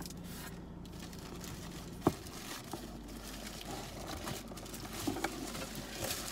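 Plastic packaging crinkling and rustling as hands pull open the wrapping around an item in a cardboard box, with a few sharp clicks, the loudest about two seconds in.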